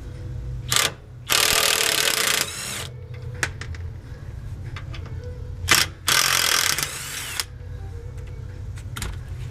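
A power wrench running twice, about a second each, backing out the two 14 mm bolts of a rear sway bar bushing bracket; a sharp click comes just before each run.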